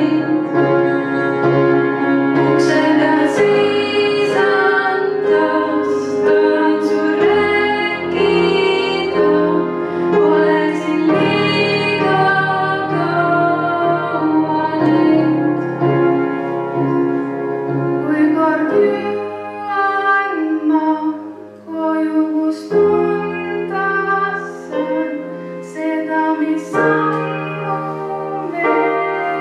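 A woman sings into a microphone with grand piano accompaniment, holding long notes. The music briefly softens about two-thirds of the way through.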